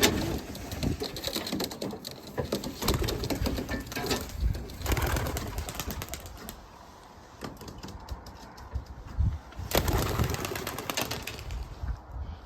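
Racing pigeons cooing, with irregular clicks and rustling throughout and a denser cluster of clicks about ten seconds in.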